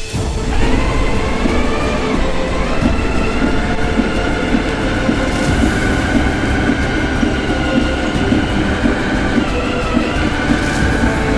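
Bedding spreader running: its hydraulically driven conveyor belt and cutting shafts make a steady mechanical rattle with a whine that slides up and down in pitch.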